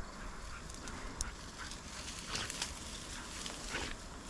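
Irregular crackling and rustling, like footsteps pushing through dry field cover, with a few louder crunches about halfway through and near the end.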